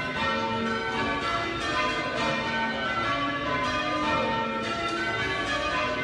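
A ring of eight church bells, mostly John Taylor castings with two Whitechapel trebles, in full-circle change ringing: a continuous run of strokes, one following another every fraction of a second, each left ringing on.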